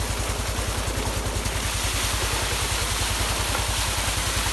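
Tubewell outlet pipe pouring a heavy jet of water into a brick tank, splashing, over the steady rapid low beat of the pump's engine running.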